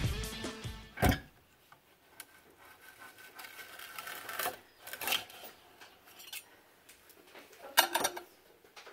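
A thin metal scraper is worked under the base of a finished PLA 3D print, scraping and clicking against the print bed in short, scattered strokes. The loudest scrape comes near the end, as the print comes free of the bed.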